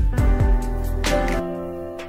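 Instrumental background music with a steady beat and sustained tones.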